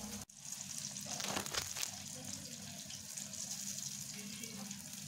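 Chips frying in hot oil in a wok, a steady sizzle, with a brief dropout just after the start.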